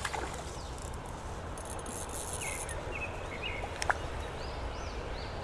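Creek-side outdoor ambience: a steady background hiss with a few short bird chirps around the middle, and one sharp click about two-thirds of the way through.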